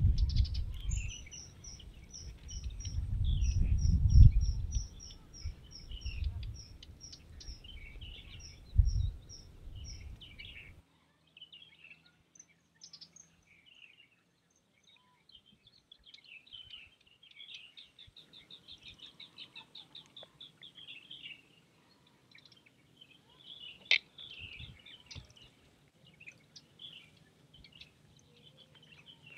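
Small birds chirping: a long run of short, high, repeated notes, and later a rapid trill. A low rumble fills the first third, loudest about four seconds in, and stops abruptly; one sharp click comes near the end.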